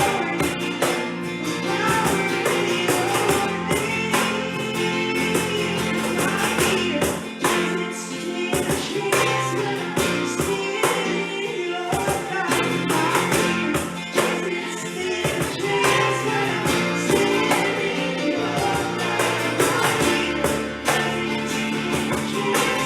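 Worship band playing a contemporary Christian song with a steady beat, with singing.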